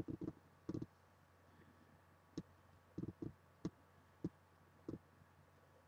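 Faint, irregular soft clicks and taps, about ten scattered over a few seconds, against near silence.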